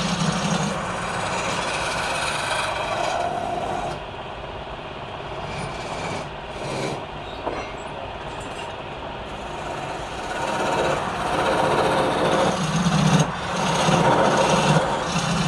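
Wood lathe running with a turning tool cutting into the spinning wood. The cutting eases off for a few seconds partway through, then grows louder again.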